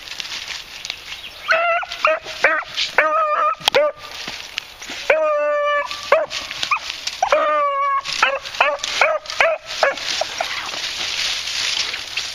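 Beagles yipping and baying in a run of short excited calls, with two longer drawn-out bays in the middle, typical of hounds giving tongue on a rabbit's scent. Dry brush and leaves crackle before and after the calling.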